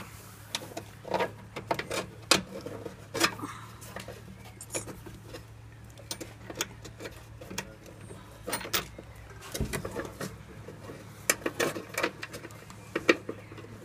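Irregular metallic clicks and clinks of a spanner on the nut and threaded rod of a steel battery hold-down clamp as it is fitted, with scrapes of the rod against the battery tray.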